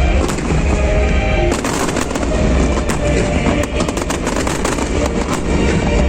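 Fireworks bursting with a deep rumble, breaking into dense crackling from about a second and a half in, over music.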